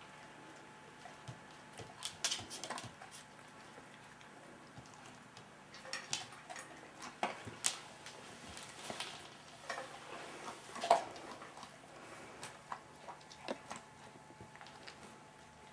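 A dog eating dry kibble from a stainless steel bowl: irregular metallic clinks and taps of kibble and collar chain against the bowl. The loudest clink comes about eleven seconds in.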